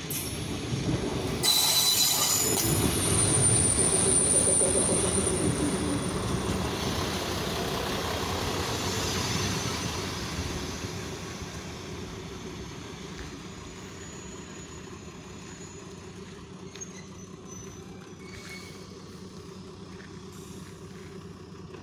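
ČD class 810 diesel railbus rolling in close by, loudest over the first ten seconds, with a brief high squeal from its wheels about two seconds in. It then slows to a stop and idles with a quieter steady hum.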